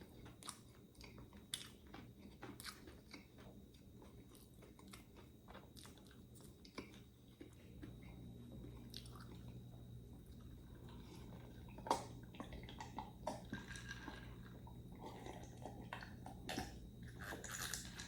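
A person chewing and biting food close to the microphone, with small wet clicks and light crunches.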